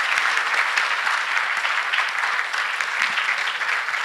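A large audience applauding steadily, a dense patter of many hands clapping at once.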